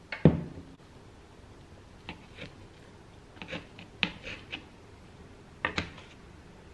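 A glass set down on a stone countertop with a thud just after the start, then a knife and fork cutting food on a plate: scattered clicks, taps and scrapes, with a louder clatter of cutlery near the end.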